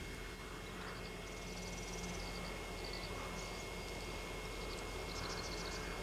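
Quiet open-air ambience: a steady low drone and hum, with several short runs of high, thin, rapid chirping notes in the distance.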